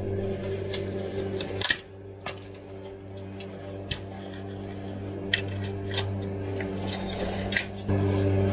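A tub of soft cheese being torn and peeled open by hand: scattered crisp clicks and crackles of the packaging, the loudest about two seconds in. Under them runs a steady low hum that gets louder near the end.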